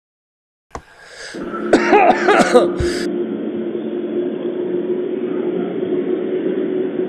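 A man coughing in a short burst about two seconds in, after inhaling a dab of cannabis concentrate. A steady hum comes in just before the coughs and continues.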